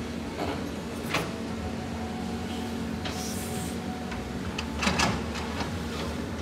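Caterpillar 320D hydraulic excavator's diesel engine running steadily under load while digging, with a few sharp knocks of the bucket against rock, the loudest a little after halfway.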